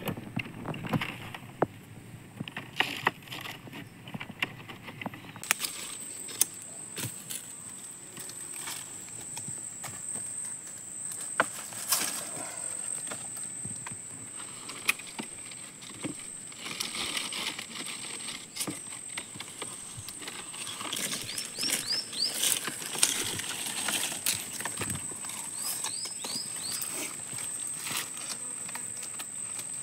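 Rustling and scattered sharp clicks and knocks as a man moves among pineapple plants and handles the fruit. A steady high-pitched whine starts about five seconds in, and short runs of quick chirps come twice in the second half.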